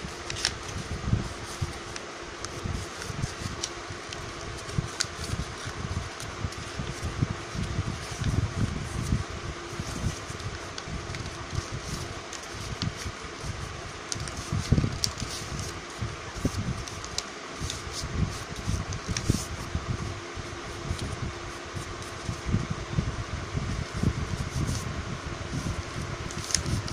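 A sheet of paper being folded and handled by hand: soft rustles and crackles with irregular low bumps, over a steady background hum.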